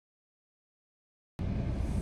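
Dead silence, then about one and a half seconds in the sound cuts in abruptly to a car's cabin on the move: a steady low engine and road rumble.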